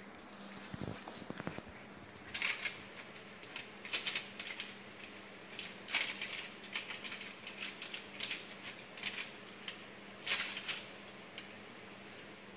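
Irregular light clicks and taps of hands setting twisted cinnamon-bread dough onto a flat baking tray, a few of them sharper, over a faint steady low hum.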